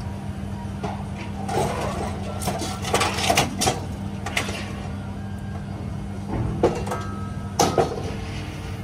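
Orange-peel grapple of a scrap-handling crane clanking and scraping against scrap metal as it grabs a load off a steel flatbed trailer, in two clusters of knocks and clatters. A steady engine hum runs underneath.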